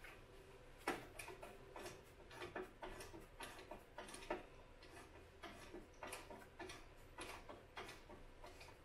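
Ratchet wrench clicking faintly in short, quick runs of ticks as it is swung back and forth, loosening a stiff bolt on a motorcycle engine mount.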